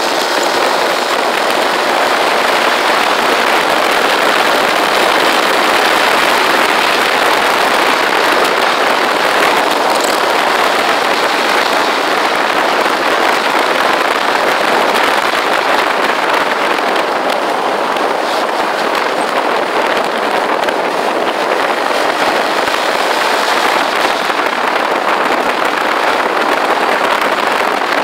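Steady, loud wind rush and buffeting on the microphone of a camera riding on a moving motorcycle, mixed with road noise.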